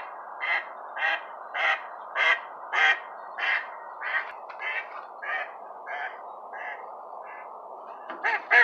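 Recorded mallard hen quacking, played through the sign's speaker: a run of about a dozen quacks, evenly spaced, that swell in loudness and then trail off, the mallard hen's descending call. Near the end a faster, louder run of quacks begins.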